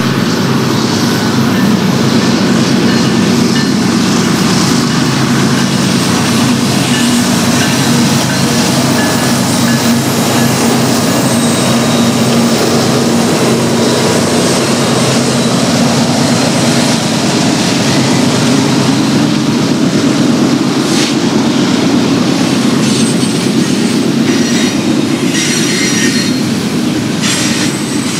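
BNSF GE diesel locomotives working hard under load, pulling an eastbound double-stack intermodal train up a mountain grade: a loud, steady engine drone as they approach and pass. In the last few seconds the stack cars roll by with sharp wheel clicks and thin wheel squeals over the drone.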